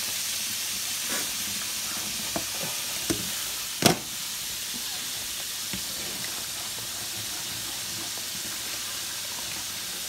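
Breaded spot fish frying in a skillet of hot oil: a steady sizzle, with a few sharp clicks and knocks of utensils on the pans, the loudest about four seconds in.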